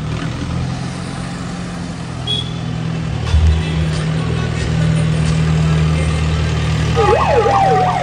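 Mahindra tractor's diesel engine running steadily as it drives up, growing louder. Near the end a warbling siren sound starts, sweeping up and down about three times a second.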